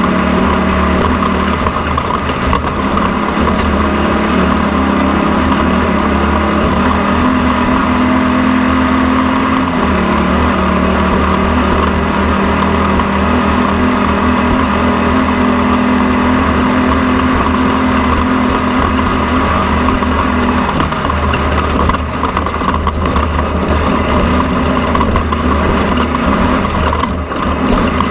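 An engine running steadily, its pitch dropping slightly about a third of the way in and its tone changing again about two-thirds through.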